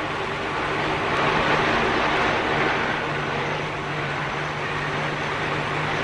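Antonov twin-turboprop airliner's engines running on the runway: a steady propeller-and-turbine drone with a low steady hum underneath.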